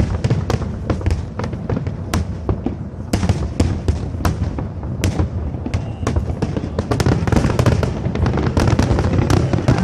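Aerial fireworks display going off: many sharp bangs and crackles in quick, irregular succession over a continuous low rumble of booms, growing denser and louder about seven seconds in.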